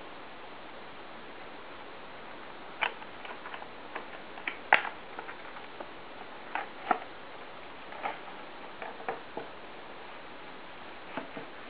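Irregular clicks and knocks of a stiff clear plastic package and its cardboard box being handled and opened, over a steady hiss. The clicks begin about three seconds in and are loudest near five seconds.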